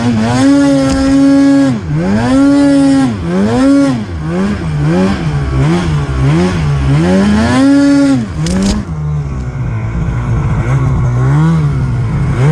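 Snowmobile engine revving hard, its pitch swinging up and down again and again with the throttle, the swings coming faster in the middle. A short sharp sound about eight and a half seconds in, after which the engine settles to a lower, steadier pitch.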